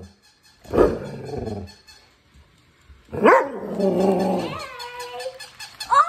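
A large curly-coated dog barking: one short bark about a second in, then a longer, drawn-out bark about three seconds in that tails off.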